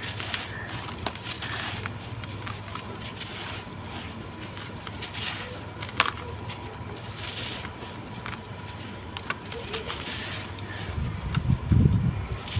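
Dry sand-cement blocks crumbling, a gritty crunching with many small crackles. There is one sharp crack about six seconds in and a few low thuds near the end.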